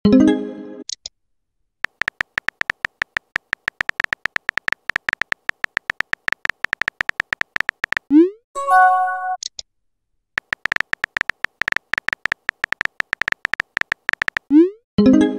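Phone-keyboard typing clicks from a texting app, in two fast runs, each ending in a short rising swoosh and a chime as the message is sent. A similar chime sounds right at the start.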